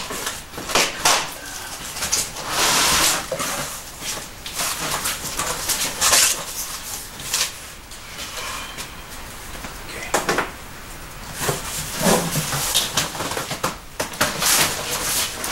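Cardboard shipping boxes and packing being handled and moved: irregular rustling and scraping with a few sharp knocks.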